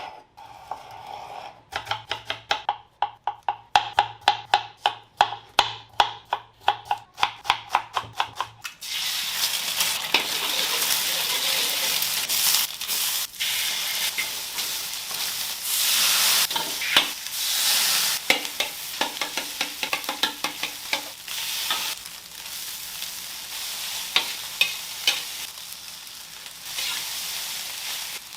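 Rapid clinking strikes of a utensil, about two to three a second with a ringing tone, for the first third. Then food frying in a hot pan, a steady loud sizzle with stirring scrapes, as egg fried rice is cooked.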